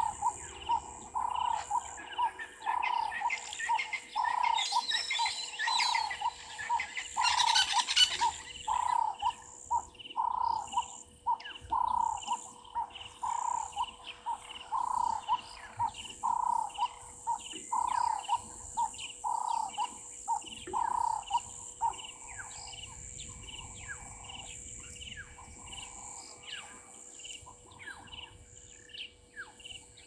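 Wild birds calling: a steady series of short repeated notes about twice a second that fades out about two-thirds of the way through. A burst of higher, busier chattering comes a few seconds in and is loudest about 8 seconds in. A constant high insect drone runs underneath.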